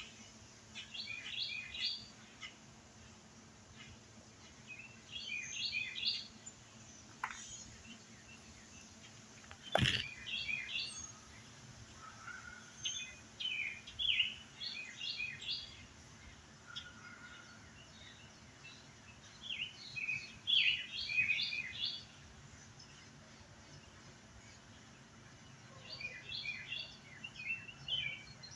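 Bird calls: bursts of quick high chirps, each lasting a second or two, repeated every four to six seconds, with a single sharp click about ten seconds in.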